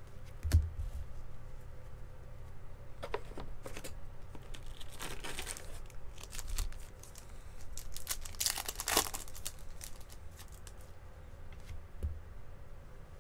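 Baseball card pack wrappers being torn open and crinkled, with the cards handled. The rustling has louder tearing bursts about five seconds in and again about nine seconds in.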